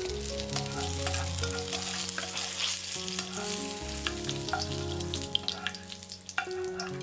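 Spring onion pieces frying in hot oil in a wok: a steady sizzle with scattered crackles and pops as the scallion oil is made.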